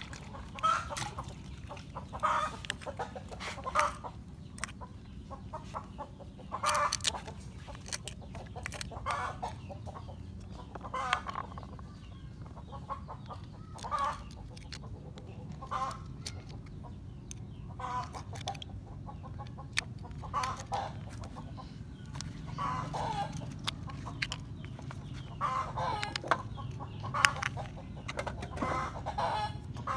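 Chickens clucking, short calls every second or two, with scattered sharp clicks and a steady low hum underneath.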